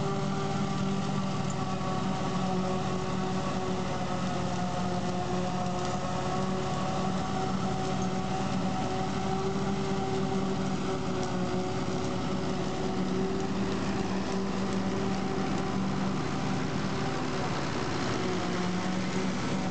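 Tractor engine running steadily under load, driving a trailed forage harvester that is chopping standing maize, the harvester's drive adding its whirr to the engine's drone.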